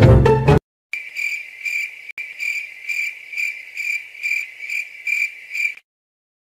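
Cricket chirping in an even pulse, about two high, thin chirps a second, starting about a second in and cutting off abruptly near the end. Loud music cuts off just before it.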